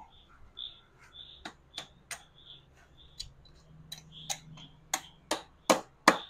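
Sharp metallic clicks and taps from parts being handled and fitted on a motorcycle engine, sparse at first, then louder and about three a second near the end. A faint high chirp repeats steadily underneath.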